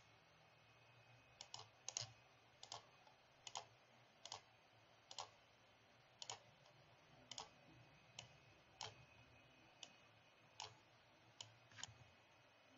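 Computer mouse clicking: faint single clicks about once a second, with a few quick double-clicks, over a faint low hum.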